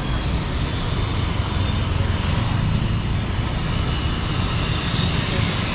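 Steady low rumble of city traffic and vehicles.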